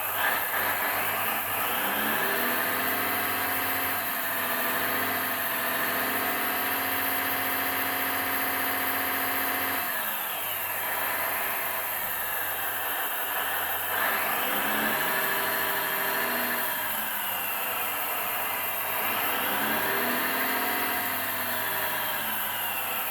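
Scale RC hydraulic excavator running, its sound module's proportional engine sound and the hydraulic pump rising in pitch as the hydraulic functions are worked and dropping back to idle, three times over.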